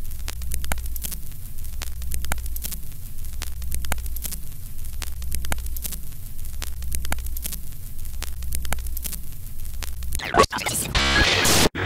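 Old-film countdown sound effect: a steady low hum with static and crackle, and a falling sweep that repeats roughly once a second. Near the end a louder burst of noise comes, and the sound cuts off briefly.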